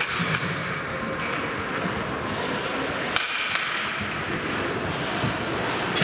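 Ice hockey rink ambience: a steady hall noise, with two sharp knocks about three seconds in, less than half a second apart.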